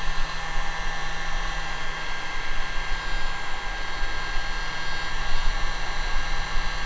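DeWalt D26950 heat gun running steadily: a constant rush of blown air over a steady motor hum.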